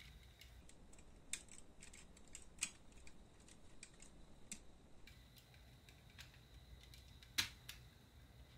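Faint, scattered clicks and taps of plastic model parts being handled and pressed together as the rear cowl of a 1/20 scale snap-fit kit is worked into place around the suspension arms. The sharpest click comes about seven seconds in.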